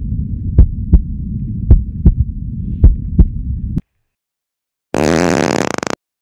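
Heartbeat sound effect: paired low thumps, about one pair a second, over a low rumble, cutting off suddenly a little before four seconds in. About a second later comes a loud, harsh one-second burst of noise that ends in a stutter.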